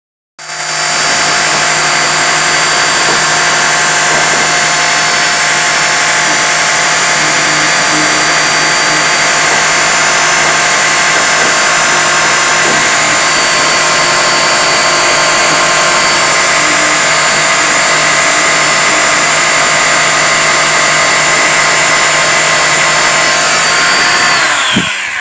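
Electric detail sander with a triangular pad starting up and running steadily at full speed, sanding cured cold-weld epoxy repair on the car body; it winds down just before the end.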